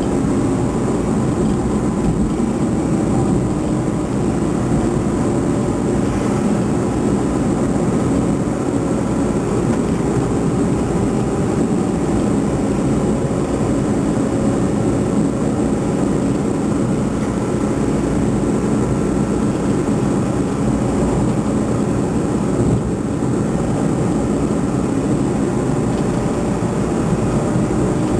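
A vehicle engine running steadily: a constant drone that holds the same pitch throughout.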